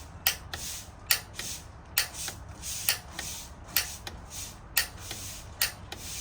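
Piezo pilot igniter on a Rheem gas water heater being pressed again and again, each press a sharp click, mostly in pairs, a little under one a second, while the pilot is being lit.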